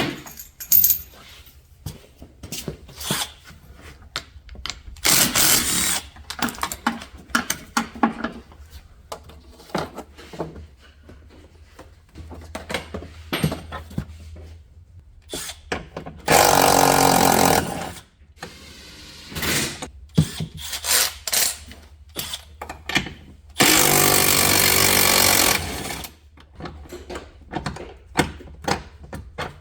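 A handheld power tool runs in two steady bursts of about two seconds each, driving out fasteners, among scattered clicks and knocks of plastic trim and hand tools.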